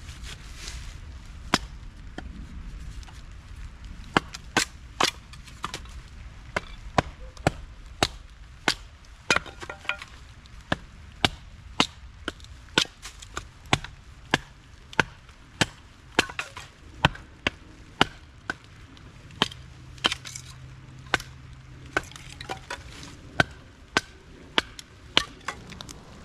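Firewood being chopped: a long run of sharp strikes of a blade into wood, about one to two a second, with a few short pauses.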